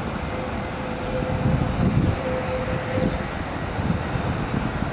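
Steady jet-engine roar from a Boeing 787-8's GEnx-1B turbofans as the airliner rolls along the runway after touchdown, with a faint steady whine running through it.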